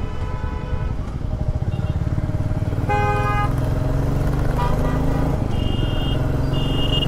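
Motorcycle engine running steadily at road speed. A vehicle horn honks briefly about three seconds in, and short high-pitched beeps sound twice near the end.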